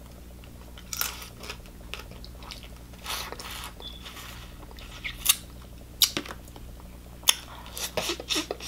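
Crab legs being eaten close to the microphone: wet chewing and lip smacks with scattered sharp clicks and crunches of crab shell, several separate bursts a second or so apart.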